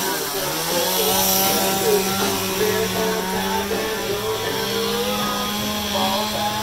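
A chainsaw running at a steady, high speed for wood carving, with music in the background.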